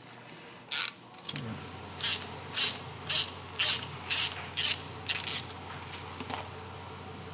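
Hand ratchet on a long extension worked back and forth, its pawl rasping in short bursts about twice a second, as the bolt holding a motorcycle's inner shift arm is backed out.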